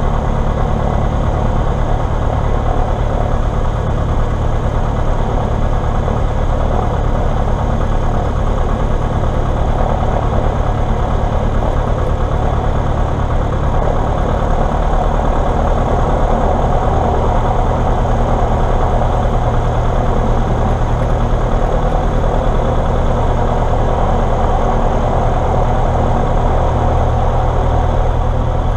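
Diamond DA40 light aircraft's engine and propeller running steadily at low power while taxiing, heard inside the cabin; the low drone grows a little fuller about halfway through.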